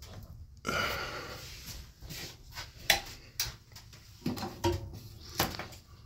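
Rustling handling noise, then several light clicks and knocks of wires and sheet metal being handled inside the furnace cabinet.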